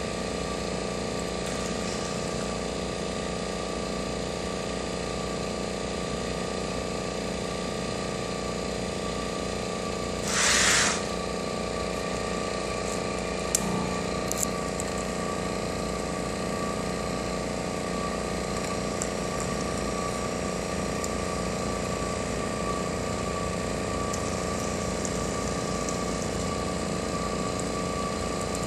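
Pick-and-place machine running: a steady machine hum with several fixed whining tones, a short hiss lasting under a second about ten seconds in, and a few light clicks soon after.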